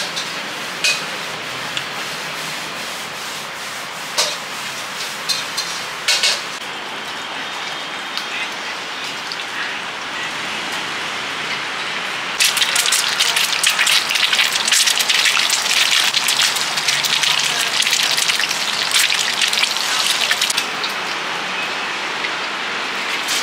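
A few sharp knife chops on a wooden cutting board over a steady hiss. About halfway through, an egg in hot oil in a wok starts to sizzle and spit, a loud, dense crackle that lasts to the end.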